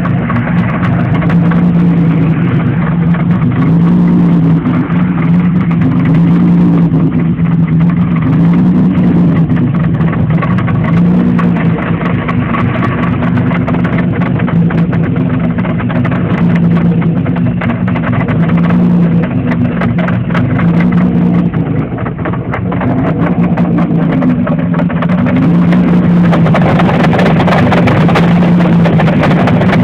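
3.4 DOHC V6 in a Pontiac Fiero running with a loud, steady, pitched drone that wavers slightly every couple of seconds. This is the loud noise the owner is asking about; its cause is not identified.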